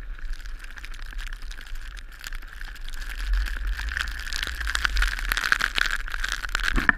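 Skis running over snow while towed up a surface lift, full of scratchy ticks, with wind rumbling on the microphone and growing stronger after about three seconds. A steady high hum runs underneath.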